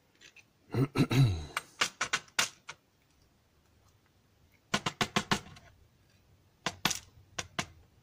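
Small metal clicks and light taps in three short clusters: tweezers and the steel cylinder housing of a Yale Superior lock clicking as its pins and springs are pulled out one by one while it is gutted.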